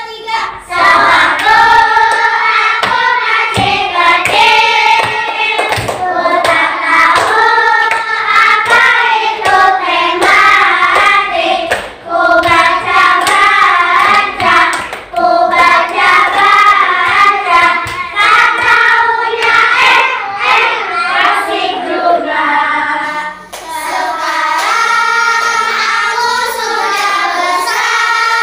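A class of young children singing a motivational class cheer together, clapping their hands along with it.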